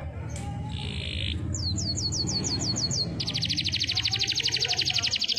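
Domestic canary in full song. A short buzzy note is followed by a run of quick downward-sweeping whistles at about five a second, then a very fast, high trill from about three seconds in. A low steady rumble runs underneath.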